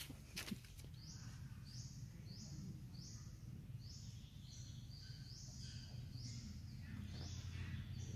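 A bird chirping over and over, a short high call about every half second or so, over a steady low rumble of background noise.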